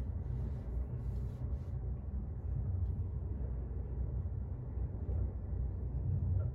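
Steady low rumble inside a cable car cabin as it travels down the line.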